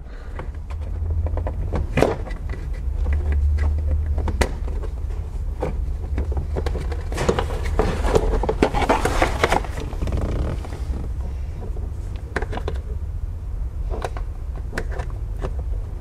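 Small screwdriver prying and scraping at a car's plastic seat belt pretensioner cover and trim: scattered sharp clicks, with a longer stretch of scraping and rustling about halfway through, over a steady low rumble.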